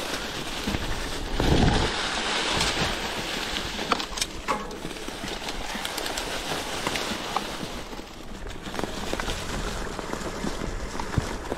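Outdoor noise from a mountain-bike ride through rough terrain: a steady rushing haze with scattered clicks and knocks, and a low gust of wind on the microphone about one and a half seconds in.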